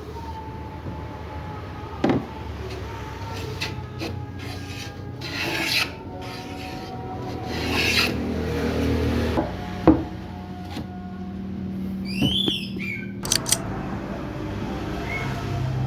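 Rasping, rubbing strokes of a hand tool on wood, with a sharp knock about two seconds in and another about ten seconds in.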